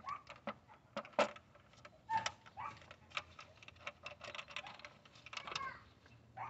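Irregular light clicks and clinks of an engine's valve cover and its bolts being handled and fitted onto the cylinder head.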